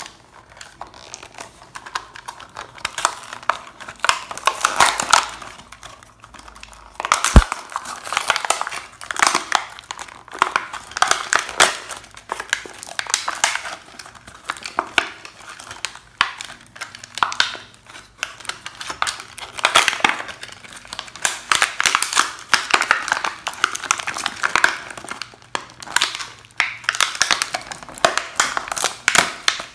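Clear plastic blister pack and cardboard backing card crinkling and tearing by hand as a small toy car is worked free, in irregular bursts. There is one sharp click about seven seconds in.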